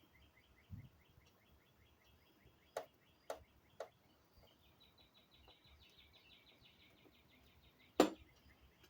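Faint, rapid, steady chirping from outdoor wildlife, with three light clicks about three seconds in and a sharper knock near the end from parts being handled.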